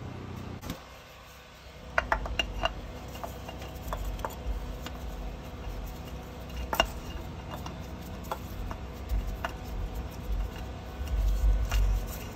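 A new oil filter being spun by hand onto the engine's threaded filter mount: scattered small metallic clicks, clinks and scrapes from about two seconds in, with heavier rubbing and thumps near the end as it is turned toward snug.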